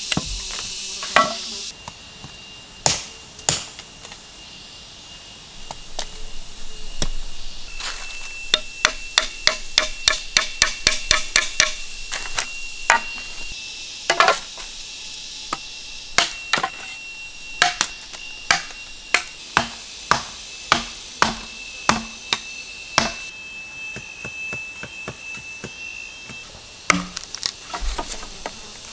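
Machete chopping green bamboo: sharp separate strikes throughout, quickening to about three a second for a few seconds midway, with a steady high insect drone behind.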